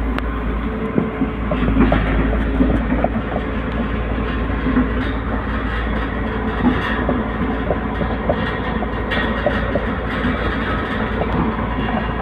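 Excavator running: a steady low engine rumble with irregular metallic clanks and clicks throughout.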